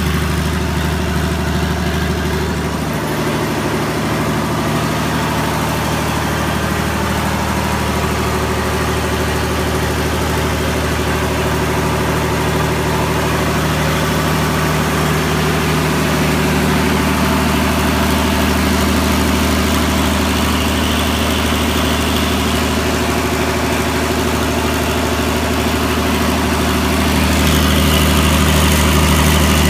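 Rolls-Royce generator set's engine running steadily, still warming up after a cold start in near-freezing weather.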